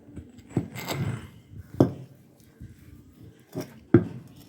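Parts of an old mechanical screw jack being handled: a few sharp metal clicks and knocks, with a short scraping rub about a second in.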